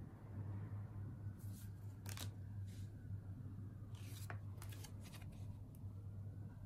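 Oracle cards being slid and laid down onto card piles: a series of short papery swishes and light taps in the middle few seconds, over a low steady hum.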